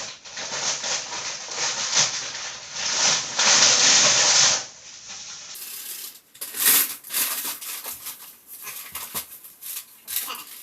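Concrete-mix ingredients pouring into a plastic mixing tub with a rushing hiss for the first four and a half seconds, then, after a cut, scattered crinkling and clicking of packaging being handled.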